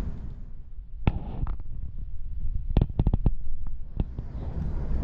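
Suburban electric train in motion: a steady low rumble broken by a string of sharp clacks and knocks, with a tight cluster about three seconds in.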